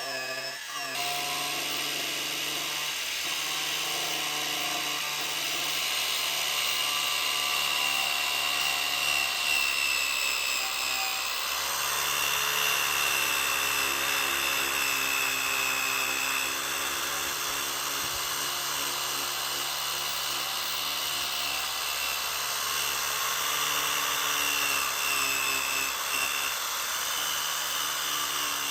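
A handheld power tool running steadily, with a grinding hiss that gets fuller about eleven seconds in.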